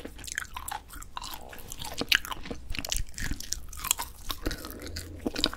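Close-miked chewing of grilled dried filefish fillet (jwipo): a steady run of small, crisp clicks as it is bitten and chewed.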